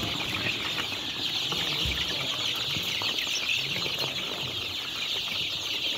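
A large flock of almost month-old Black Australorp chicks peeping all at once, a dense, unbroken high-pitched chorus.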